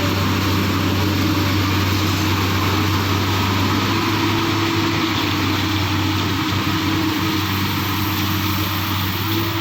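Excavator's diesel engine running steadily, a constant low hum with no change in speed.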